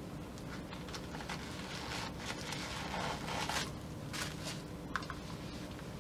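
Unpacking noises: paper stuffing and packaging rustling and crackling as a shoe is pulled from its cardboard box, loudest in bursts through the middle, with a short sharp click about five seconds in.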